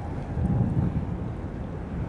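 Wind buffeting the microphone: an uneven low rumble that swells about half a second in, over open-water ambience. A faint steady tone fades out early in the first second.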